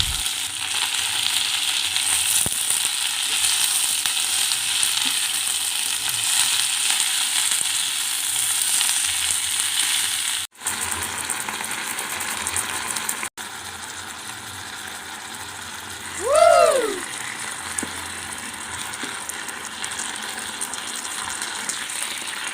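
Food sizzling as it fries in a pan, a steady hiss that breaks off abruptly twice and then goes on more quietly. About two-thirds of the way in comes one short squeak that rises and falls in pitch.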